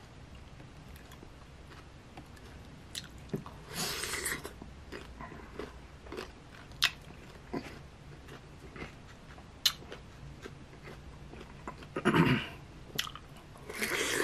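Close-miked biting and chewing of firm green mango slices, with scattered small wet mouth clicks. Louder bites come about four seconds in, about twelve seconds in and again at the very end.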